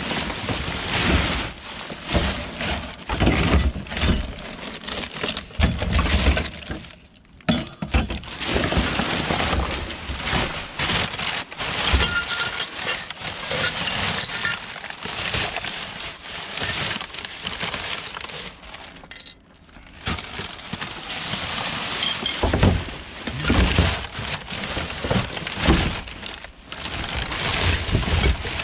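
Gloved hands rummaging through rubbish in a waste bin: plastic bin bags and carrier bags rustling and crinkling, with items knocking and clinking together, pausing briefly twice.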